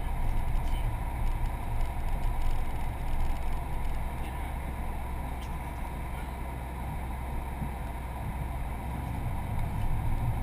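Car running and rolling at low speed, heard from inside the cabin: a steady low engine and road rumble.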